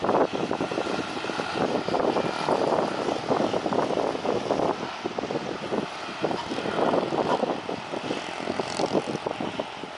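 Propeller aircraft engine running as the plane flies over on its landing approach, rising and falling in level.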